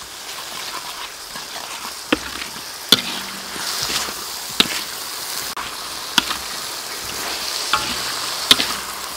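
Chicken and curry paste stir-frying in a large steel wok, with a steady sizzle. The metal spatula scrapes and clinks sharply against the wok now and then as the mixture is turned, frying the paste until fragrant.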